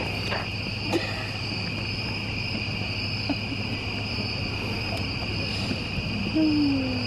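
Steady high-pitched chorus of night insects trilling without a break, with a sharp pop from the wood campfire about a second in.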